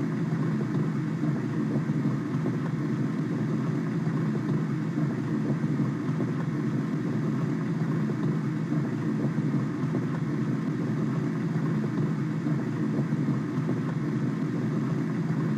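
Simulated water pouring into a tank through a fully open fill valve: a steady, low rushing noise with a faint hum, unchanging throughout.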